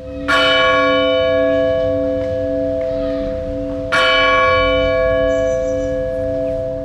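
Bell struck twice, about four seconds apart, each stroke ringing out and slowly fading over a steady held low chord, as the programme's interlude jingle.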